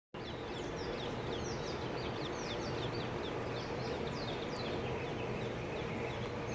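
Small birds chirping over and over, short quick falling chirps, over a steady outdoor background hiss.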